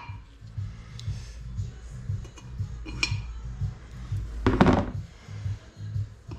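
Ball-peen hammer tapping a steel pin through a locking tool into a cast-iron cylinder head: scattered light metallic clinks, one ringing briefly about three seconds in, then a louder clunk about four and a half seconds in.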